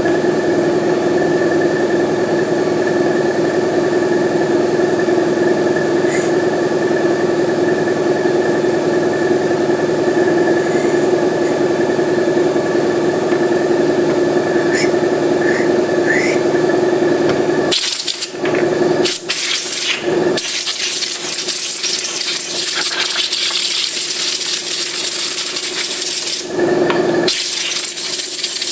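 A steady machine hum with a few small clicks of parts being handled. From about two-thirds of the way in, long bursts of compressed air hiss from a blow gun being used on a motorcycle carburetor bank, with short breaks between them.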